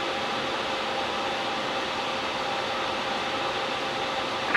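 Steady Airbus A350 cockpit background noise: an even hiss of the air-conditioning and airflow with a faint steady hum.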